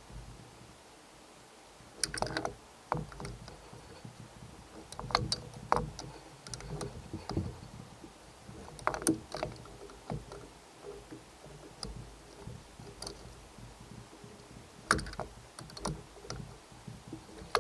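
Hand tools and metal parts clicking and knocking irregularly on a small outboard motor during reassembly work such as tightening bolts.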